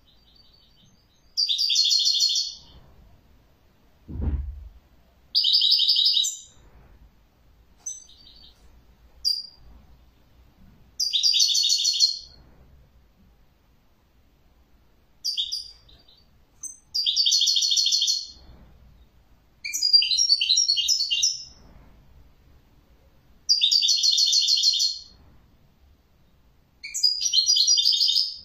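European goldfinch singing in repeated trilled phrases, each about a second long, separated by short pauses with a few single chirps between them. A dull thump sounds once about four seconds in.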